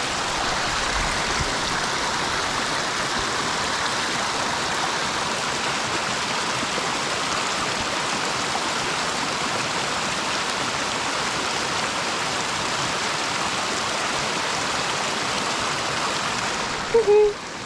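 Steady rush of running water, with a short voice-like call near the end.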